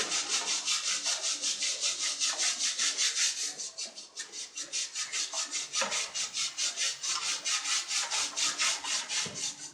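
A stiff brush scrubbing the wet blades of a split air conditioner's indoor blower wheel, in rapid, even back-and-forth strokes, about five a second, with a short pause around four seconds in.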